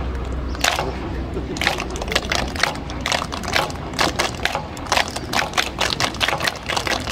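A group of children clapping and shouting in unison, with quick sharp claps that come faster and thicker in the second half.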